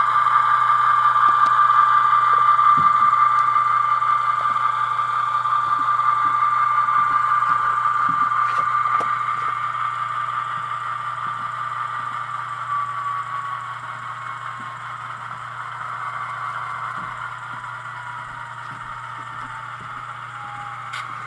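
Model locomotive's Tsunami sound decoder playing GE diesel prime-mover sound through its small onboard speaker, a steady high drone with light clicking and rattling from the wheels on the track. About halfway through the high tone slowly glides down and the sound gets quieter, as the engine sound winds down.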